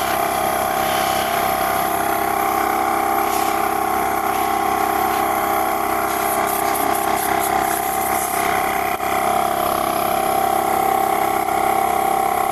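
Two-cylinder portable tire-inflator air compressor, battery-powered, running steadily with an even tone, working again after being repaired.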